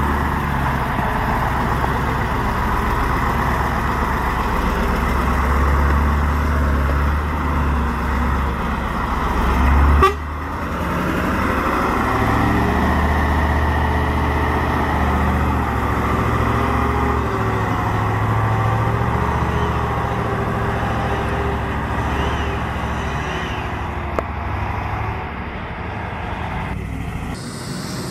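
Heavy diesel engine of an Iveco Magirus logging truck labouring under load as the truck works through deep mud. The sound breaks off abruptly about ten seconds in and then goes on with the engine still pulling.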